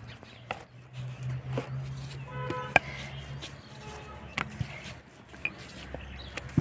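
Wooden rolling pin knocking and tapping on a wooden chopping board as dough is rolled out: several sharp taps spread through the seconds, over a steady low hum. A brief pitched call sounds about two and a half seconds in.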